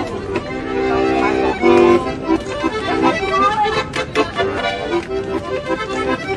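Instrumental music with many short, quick notes, laid over the clip as a soundtrack.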